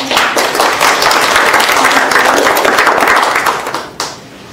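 Audience applauding, stopping about four seconds in.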